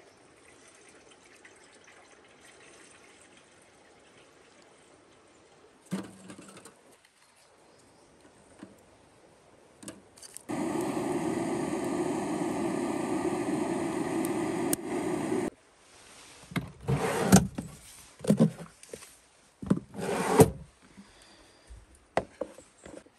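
Water running steadily into a samovar for about five seconds, then several short splashes and sloshes as it is rinsed clean of dust and debris before use.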